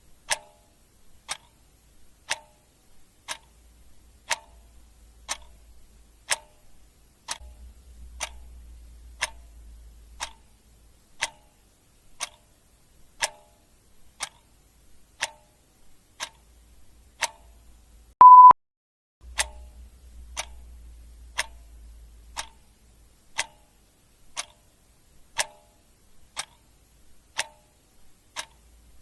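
Ticking clock sound effect: a sharp tick about once a second, evenly paced. About two-thirds of the way through, a single short, high beep sounds loud over the ticking.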